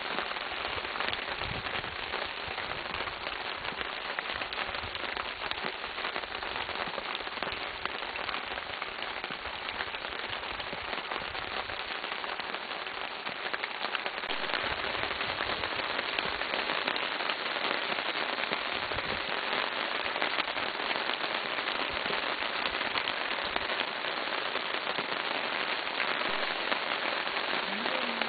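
Heavy rain falling, a dense steady hiss with close crackling patter of drops, growing a little louder about halfway through.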